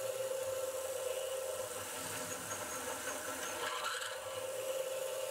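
Milling machine spindle running with a 9 mm drill boring into aluminum at 1200 RPM: a steady hum, with the cutting noise rising briefly about four seconds in.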